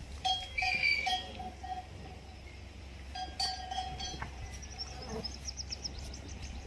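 Bell on livestock ringing in a few short strokes, then again a few seconds later. A rapid high trill follows near the end, over a steady low hum.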